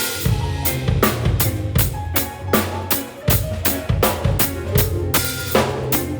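Drum kit played in a steady groove, with kick and snare and about three bright cymbal hits a second, over a sustained low bass underneath.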